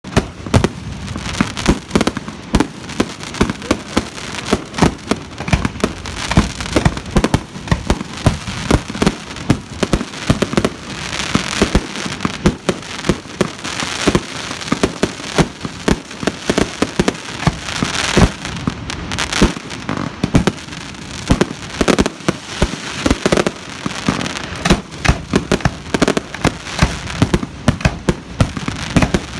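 Aerial fireworks going off in a continuous rapid barrage: many sharp bangs, some very loud, over a dense stream of smaller pops and crackling.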